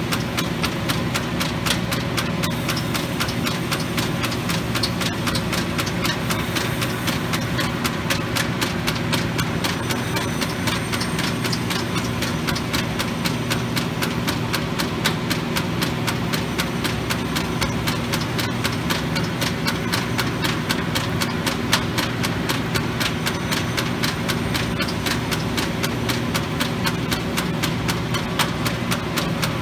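1943 Arter A3-16 rotary surface grinder running and grinding parts, its belt- and gear-driven wheel spindle and rotating chuck giving a steady mechanical hum with a rapid, even ticking.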